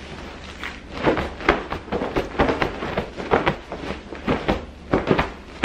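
A Utopia Bedding goose down pillow shaken hard by hand, its fabric rustling and flapping in quick strokes, about three or four a second, from about a second in. The pillow is being shaken to expand after coming out of its vacuum-compressed packaging.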